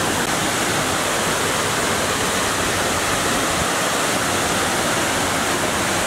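Tomara Waterfall's white water pouring down a rock face, a steady, even rush of falling water.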